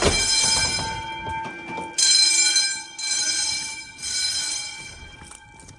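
Fire alarm bells ringing during an alarm test, with a ringing, reverberant gong tone. They sound in pulses: three about a second apart, then a pause of about a second and a half, the temporal-three evacuation pattern.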